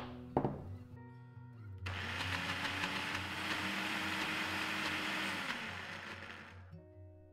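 Countertop blender running for about five seconds on a thick cashew, coconut cream and white chocolate mixture. The motor starts abruptly about two seconds in and winds down near the end, after a couple of knocks near the start.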